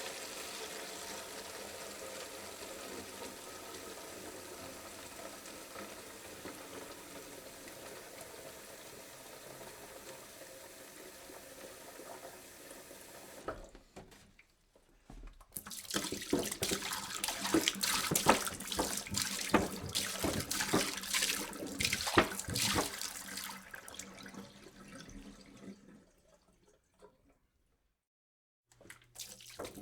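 Water poured into a jug: a steady filling stream that fades slightly for about thirteen seconds, then stops. After a short break comes a louder, splashing pour with many small sharp splashes, which stops about ten seconds later; after a few seconds of near silence the pouring starts again near the end.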